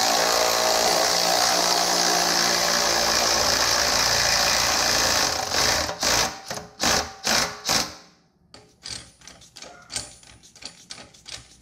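Cordless electric ratchet running steadily as it turns the forcing bolt of a bushing press, drawing a polyurethane trailing-arm bushing into the arm. After about five and a half seconds it gives several short trigger bursts as the bushing seats, then there are only faint clicks and taps.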